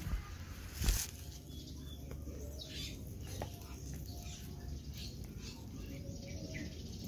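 A single sharp knock about a second in, followed by steady outdoor background with faint bird chirps.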